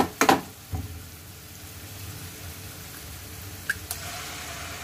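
Eggs cracked against a frying pan and dropped into hot oil with onions: sharp shell cracks at the start and again a little before the end, over a steady sizzle that grows louder near the end.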